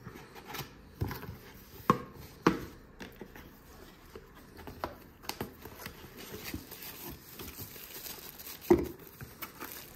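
A product box being opened and unpacked: packaging crinkling and rustling, with a few sharp clicks or knocks, the loudest about two seconds in and again near the end.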